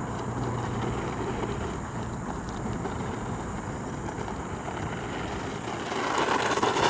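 Hosim electric 4x4 RC truck running on a road, its motor and tyres making a steady noisy hum with a thin high whine, louder near the end as it comes closer.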